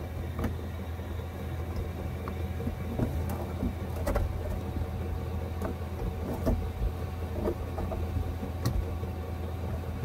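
Steady hum of a cheap Chinese diesel air heater running at full output, its blower pushing hot air through the ducting and out of a floor vent. A few faint clicks from a hand at the vent grille.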